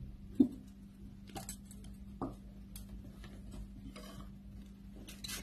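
Too Faced coconut setting spray misted from its pump bottle onto the face: a few short, faint hissing sprays, with small clicks from handling the bottle.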